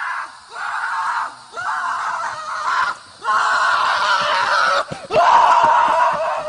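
High-pitched screaming cries, five in a row with short breaks between, the last one the loudest.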